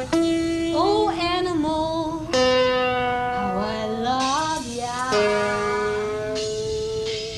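Guitar music with a woman's wordless vocal calls that slide up and down in pitch over held notes.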